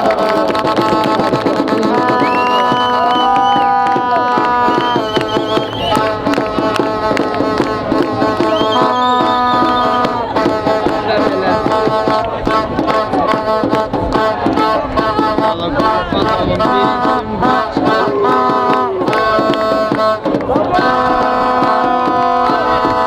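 Music: held chords, several notes sounding together and changing every second or two, over fast drumming.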